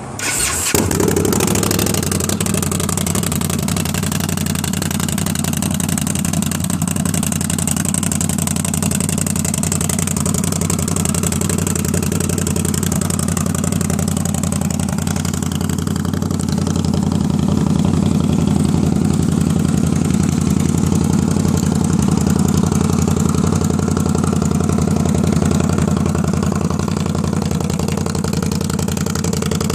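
2015 Indian Scout's liquid-cooled 69 cubic inch V-twin, breathing through a 2-into-1 aftermarket exhaust, starting up and settling into a steady idle.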